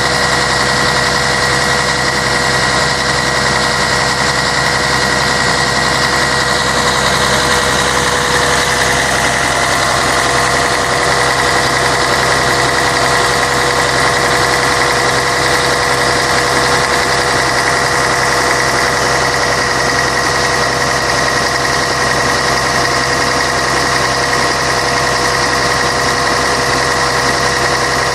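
Scania K113 bus's six-cylinder diesel engine running steadily, with a steady high whine over the engine note.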